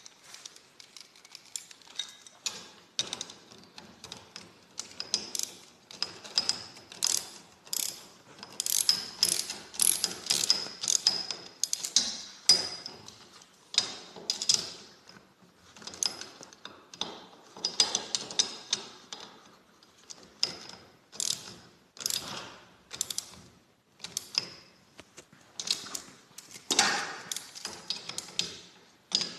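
Socket ratchet wrench clicking in repeated short bursts as bolts are tightened.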